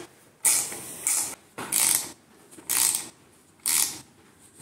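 Small fine-tooth ratcheting wrench with a screwdriver bit, clicking on each back-swing as it drives a screw into pine: short bursts of rapid ratchet clicks about once a second, with quiet gaps between.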